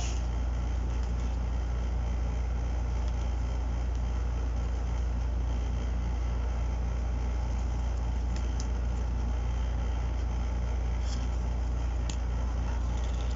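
Steady low hum throughout, with a few faint light ticks from oracle cards being handled.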